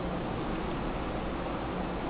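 Steady, even hiss of room noise.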